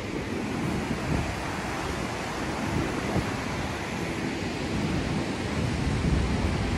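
Wind gusting over the microphone on top of the steady rush of churning, whitecapped river water in a large waterfall's basin.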